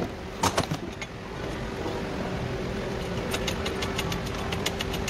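A few sharp metallic clinks just under a second in, then a steady mechanical hum, like a machine or engine running. From about three seconds in, a fast light ticking joins it at about six ticks a second.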